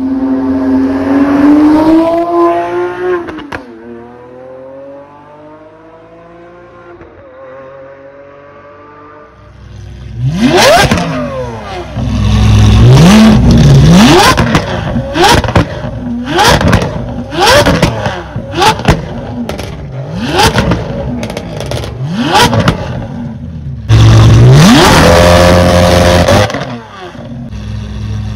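Lamborghini Aventador's V12 accelerating hard, shifting up about three seconds in, then fading as it pulls away. About ten seconds in, a stationary Aventador SV's V12 is revved in a string of sharp throttle blips with loud crackles and pops as the revs drop, ending in one longer held rev near the end.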